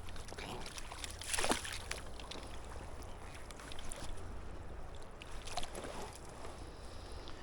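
River water splashing in a few short bursts, the loudest about a second and a half in, over a steady low rumble of wind on the microphone.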